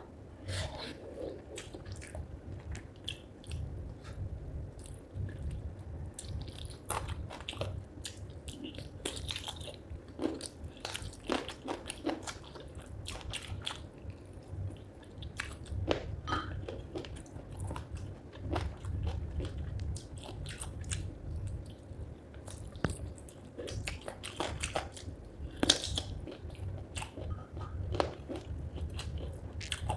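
A person eating spicy chicken feet curry with rice close to the microphone: steady chewing with many irregular sharp crunches and clicks as the feet are bitten and chewed.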